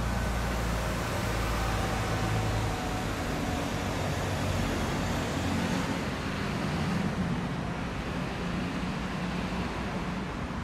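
Steady road traffic noise from a city street, with a low rumble that eases after about three seconds.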